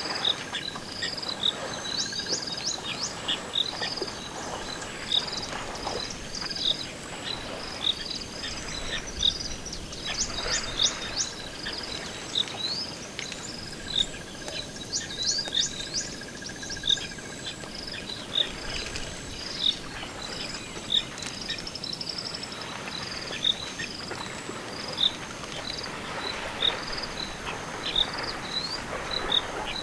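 Riverside bush ambience: insects trill in a high, pulsing chorus throughout, and many short bird chirps and calls sound over it.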